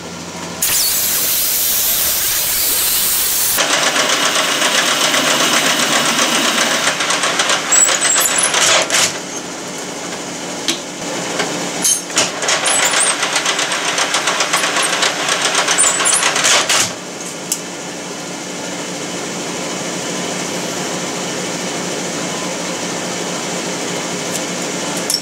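An abrasive cut-off saw cuts through steel stock for about three seconds, a loud hiss. Then a metal lathe runs and turns the steel piece into a shaft collar, a steady machine whir with the tool cutting, a few sharp clicks, and somewhat quieter running in the last several seconds.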